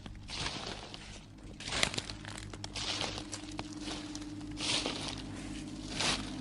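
Irregular crunching, crinkling noises, one every half second to a second, over a steady low droning hum.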